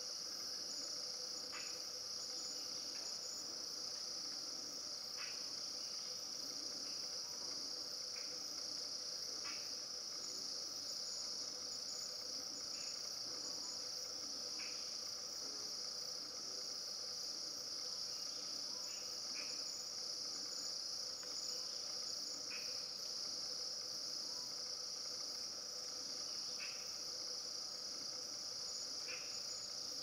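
Steady, high-pitched drone of a forest insect chorus, crickets or cicadas, with short faint chirps every few seconds.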